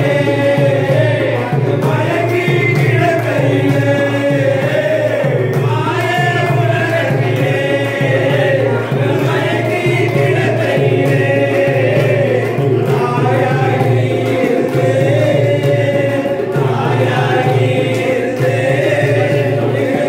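Devotional song: singing in a chant-like melody over steady, continuous accompaniment.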